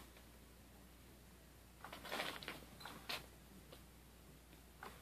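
Cat's Meow toy's motorized wand sweeping under its nylon cover: a short burst of fabric rustling about two seconds in, then a sharp click about a second later.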